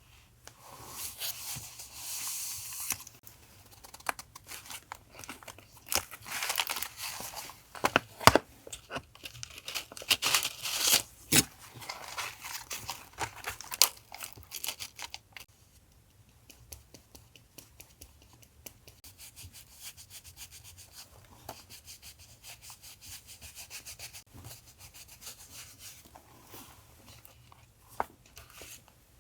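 Paper being torn and rustled by hand, in several noisy bursts with sharp crackles over the first half, then softer rubbing and handling of paper.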